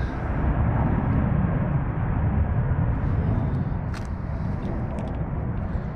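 Steady low outdoor rumble with no distinct source, and a few faint light clicks about four seconds in as a plastic packet of fishing hooks is handled.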